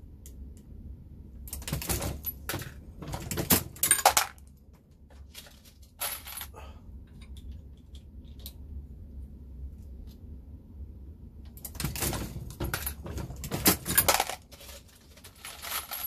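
Brass 9mm cartridges and cases clinking and rattling at a Dillon Square Deal reloading press, in two spells of a couple of seconds each, about two seconds in and again near the end, with a few single clicks between.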